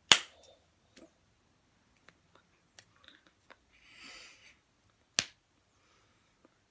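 Sharp slaps and claps of hands striking each other or the body while signing: two loud ones about five seconds apart, with softer taps between them and a short breathy hiss about four seconds in.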